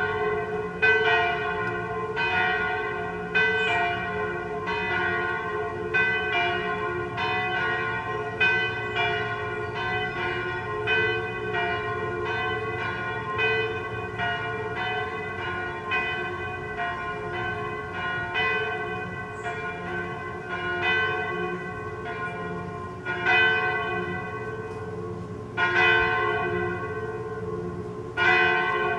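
Two swinging church bells pealing together: a 983 kg bell in F cast in 1950 by Michiels of Tournai and a 771 kg bell in G-flat cast in 1836 by Van Aerschodt of Leuven. Their strokes interleave unevenly at about one a second or a little more, each note ringing on under the next, with a few louder strokes near the end.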